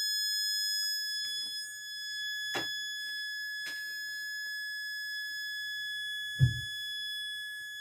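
Steady high-pitched whine at about 1.7 kHz from coils driven by a MOSFET switching at that frequency, the rig held at its resonance frequency. A few faint clicks, and a short low thump about six and a half seconds in.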